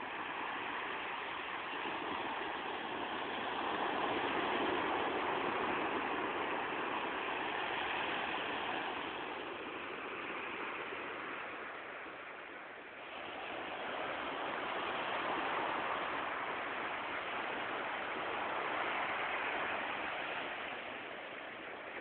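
Ocean surf breaking on a beach: a continuous wash of noise that swells and eases every few seconds as the waves come in and draw back.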